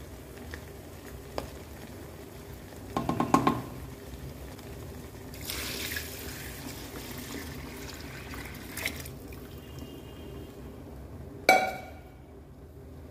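Mutton stock poured from a steel pot into a wok of fried mutton, a hissing splash that lasts a few seconds. Before it comes a quick clatter of a utensil against the pan, and near the end one loud ringing metal clank.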